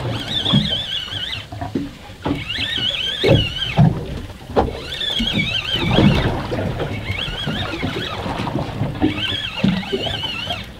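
Fishing reel being cranked in spurts as a fish is pumped up on a bent rod: a wavering gear whine during each burst of winding, stopping briefly between bursts, with low thumps among the water and wind noise around the boat.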